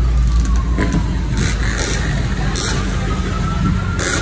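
Engines idling with a low, steady rumble, while a siren wails faintly, its pitch slowly falling and then rising again. A few short clicks.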